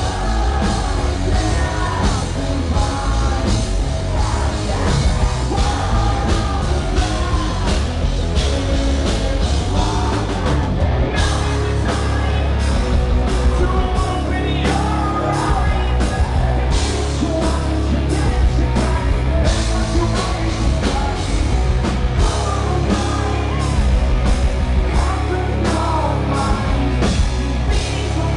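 A rock band playing live: electric guitars, bass and a drum kit keeping a steady beat, with a male vocalist singing and shouting over them. Loud and bass-heavy throughout.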